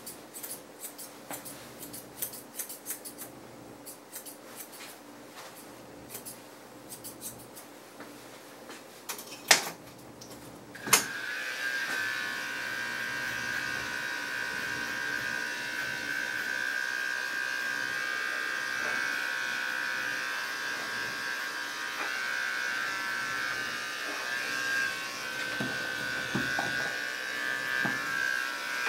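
Grooming scissors snipping in scattered short clicks, then a sharp click about eleven seconds in as an Andis Endurance detachable-blade dog clipper switches on and runs with a steady high buzz while it is worked through the dog's coat.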